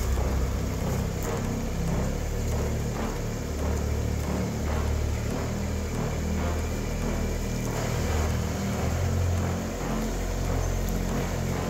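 Jeep Wrangler engine running at low revs as it crawls over a rock ledge, its low note rising and falling a little as the throttle is worked.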